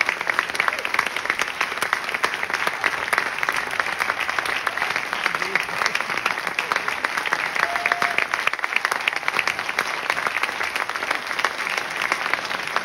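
Theatre audience applauding: dense, continuous clapping from many hands at a steady level.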